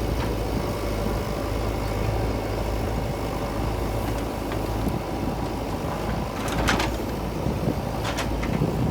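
Heavy diesel engine of earth-moving machinery running steadily, with two short metallic clanks in the second half.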